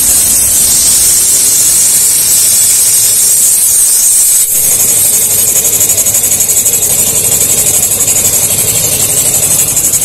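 Compressed air hissing loudly from a pump hose into a motorcycle's tubeless tyre as it is inflated. About halfway through, the hiss takes on a fast, even pulsing.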